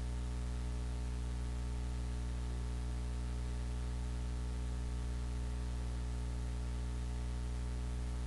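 Steady electrical mains hum with a buzzy stack of higher tones over a faint hiss, unchanging throughout.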